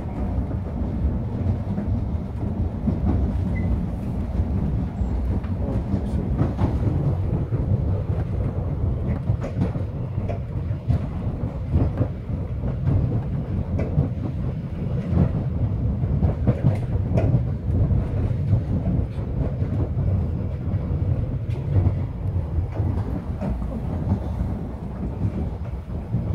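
MBTA Red Line subway car running along the track, heard from inside the car: a steady low rumble with irregular clacks and knocks from the wheels on the rails.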